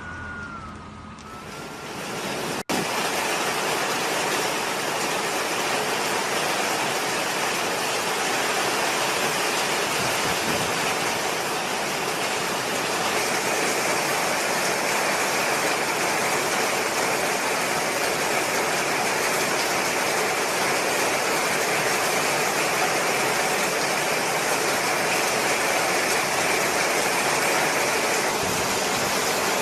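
A siren-like tone falling in pitch for the first couple of seconds, then an abrupt cut to a loud, steady rush of storm wind and driving rain.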